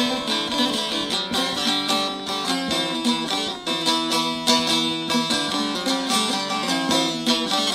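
Bağlama (long-necked Turkish saz) played solo in a fast run of plucked, strummed notes: the instrumental passage between sung verses of a Muharrem mourning lament.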